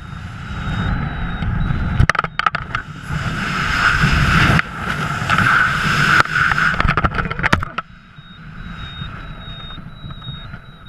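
Wind rushing loudly over the camera microphone during the freefall after the main canopy is cut away, with a few sharp buffets about two seconds in. About eight seconds in the noise drops off suddenly to a quieter flutter as the reserve canopy opens and the fall slows.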